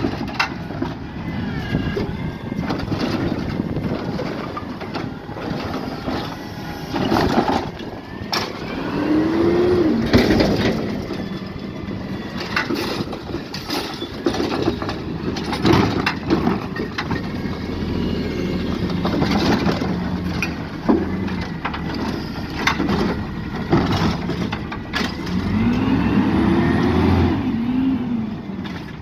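Peterbilt 520 garbage truck with a Rapid Rail automated side-loader running, its engine revving up and back down twice as it drives the hydraulics that lift and dump a recycling cart. Sharp clanks and knocks from the arm and cart come through on and off.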